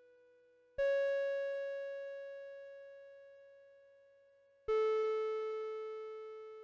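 UNI-PEX MZ-101A music chime, an old unit that predates melody chips, sounding two bell-like notes about four seconds apart, each starting sharply and dying away slowly, the second lower than the first. The tail of the previous note is still fading as it begins.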